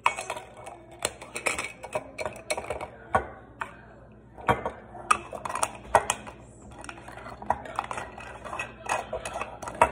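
Stainless steel drinking straws and metal lids clinking and scraping against glass mason jars as the straws are fitted through the lids and the lids are put on the jars: an irregular run of clinks, knocks and scrapes.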